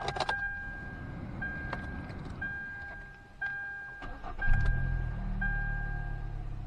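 Dashboard warning chime beeping about once a second while the 2013 Hyundai Elantra's four-cylinder engine is started; it catches about four and a half seconds in and settles into a steady idle. The engine has fresh spark plugs and a new coil after a cylinder 2 misfire and is running smooth.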